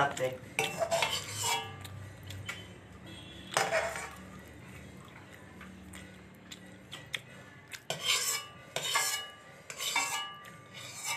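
A person eating rice and meat from a plate: chewing and mouth sounds, with scattered clinks and scrapes of the plate and food being stirred.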